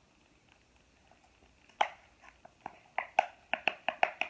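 Plastic fidget toy being clicked by hand: one sharp click, then a quick run of about eight clicks near the end.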